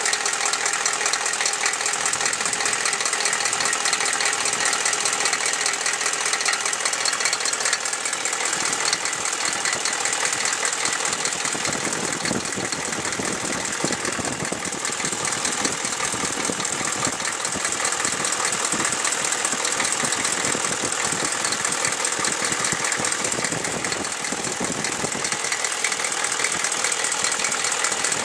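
Chevy 6.5 L V8 diesel idling steadily with a fast, even clatter and knock. The owner suspects a valve or a rocker arm that needs adjusting, a noise he says gets worse once the engine is warm.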